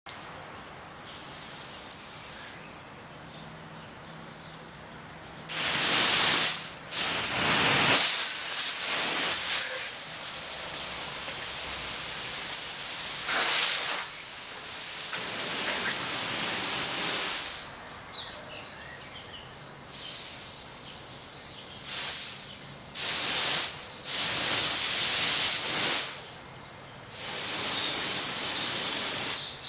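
Birds chirping, interrupted by several stretches of loud hissing noise a few seconds long.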